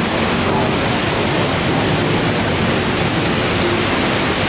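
Steady rushing of river water churned up by a steam sternwheeler's turning paddlewheel as the boat moves.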